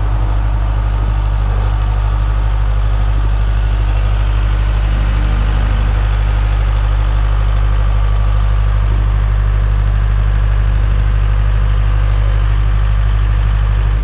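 An engine running steadily at constant speed with a loud, deep hum.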